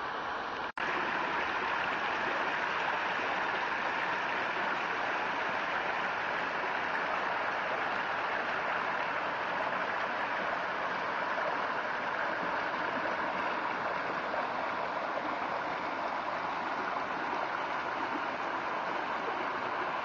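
Small mountain stream cascading over boulders and fallen logs: a steady rush of water, broken by a momentary gap in the sound under a second in.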